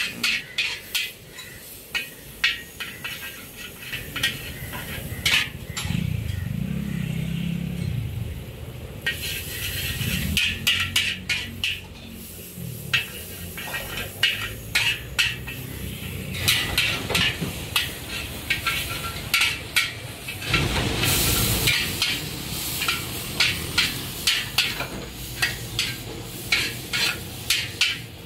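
Char koay teow being stir-fried in a wok: a metal spatula scrapes and clanks against the wok over and over, over the sizzle of the noodles. The sizzle flares up loudly several times.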